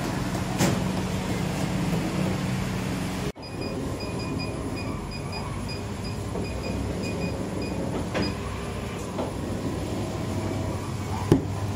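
Bakery dough divider and conical dough-rounding machine running with a steady mechanical rumble. For a few seconds it is joined by a quick, evenly repeating high chirp, about three a second.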